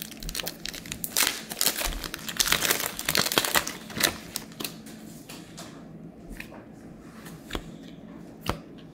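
Foil trading-card pack being torn open, crinkling and crackling for about four seconds, then quieter scattered clicks and rustles as the cards are pulled out and handled.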